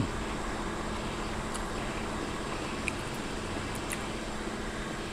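Steady background hum and hiss of the room, with a faint steady tone under it and a few faint clicks.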